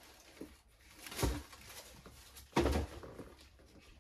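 Two brief rustling knocks about a second and a half apart as a pair of sneakers is handled and turned over an open shoebox lined with tissue paper.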